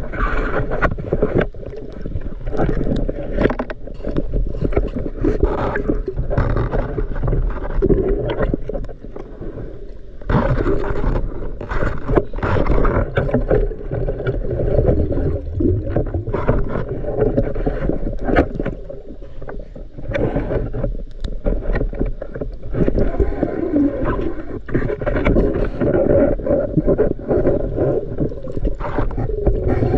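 Muffled underwater sound from a spearfishing dive: sloshing and bubbling water, dull and low, with scattered short clicks and knocks.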